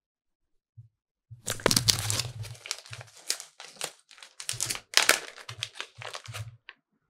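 Clear plastic bag of soy wax melt brittle crinkling and crackling as it is handled and opened, in irregular bursts starting about a second and a half in and stopping shortly before the end.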